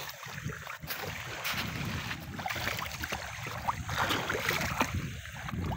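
Shallow seawater sloshing and splashing in small bursts as fish are rinsed by hand on a plate held in the water.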